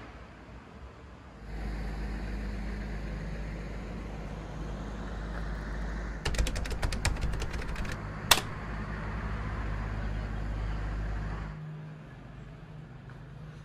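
Steady low machinery hum of a ferry moored at its berth, starting about a second and a half in and cutting off near the end. In the middle comes a fast rattle of sharp clicks, about ten a second, then one loud single click.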